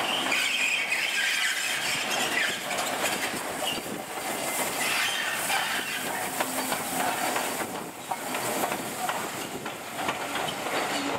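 LMS Royal Scot class 4-6-0 steam locomotive 46115 Scots Guardsman rolling slowly past into a station. Its wheel flanges squeal near the start, and its wheels click over rail joints.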